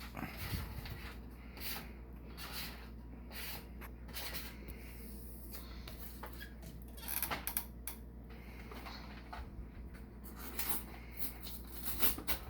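Scattered knocks, clatter and rustling of kitchen things being handled, with a busier run of knocks about seven seconds in and again near the end, over a steady low hum.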